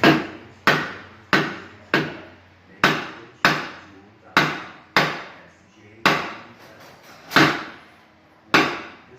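Hammer striking the wheel hub assembly about eleven times, each sharp blow ringing briefly, to knock the stuck hub loose. The blows come every half second to a second, more slowly toward the end.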